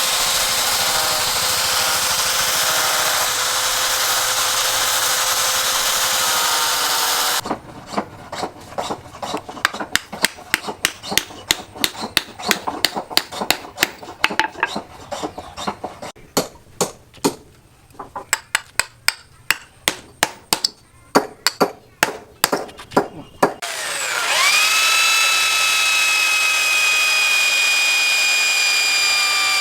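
A power tool working on material with a steady rasping noise, then a run of sharp, irregular taps or knocks, then an electric drill's motor spinning up to a steady high whine.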